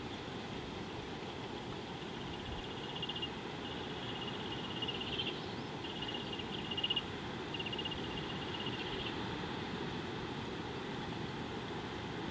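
Wildlife ambience: a steady low rush, with several short bouts of a small animal's high, rapid trilling in the middle of the stretch.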